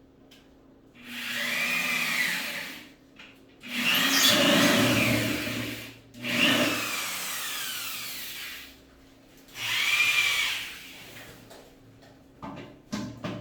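Power drill running in four separate bursts, its motor pitch rising and falling as the trigger is squeezed and let go, as screws are driven in. In the third burst the pitch falls steadily as the motor slows under load. A few short knocks come near the end.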